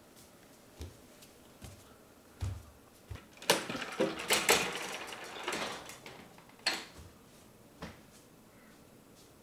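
Knocks and clatters of things being handled indoors: a few single knocks and a dull thud, then a busier burst of clicking and rattling about halfway through, and two more knocks near the end.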